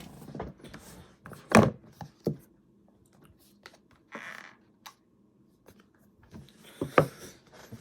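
Handling and opening a cardboard phone box at close range: a few knocks and thunks, the loudest about a second and a half in and another near the end, with a short rustle about four seconds in.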